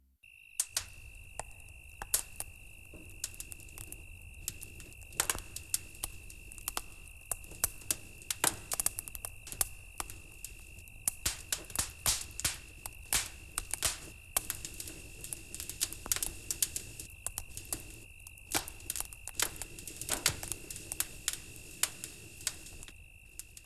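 Bonfire crackling, with irregular sharp pops several times a second over a faint low rumble, alongside a steady high-pitched tone.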